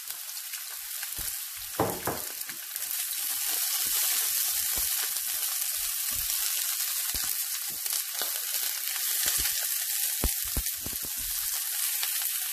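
Sliced onions and garlic sizzling in hot cooking oil in a frying pan, the sizzle growing louder about three seconds in. A spatula stirring them makes scattered taps and scrapes against the pan.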